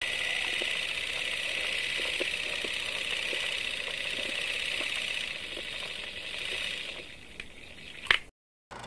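Old film projector running, a steady whir and hiss with faint scattered crackles of the film, over a film-leader countdown. It fades about seven seconds in, a sharp click comes just after eight seconds, and it cuts to silence.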